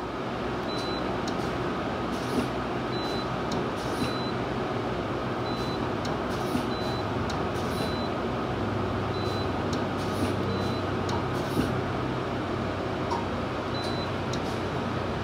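Steady mechanical hum of an Okuma Genos L-200EM CNC lathe, with a constant mid-pitched whine and a low drone. Sharp irregular clicks and about a dozen very short high chirps sound over it.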